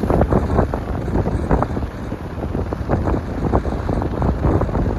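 Wind buffeting the microphone: an uneven, gusting low rumble.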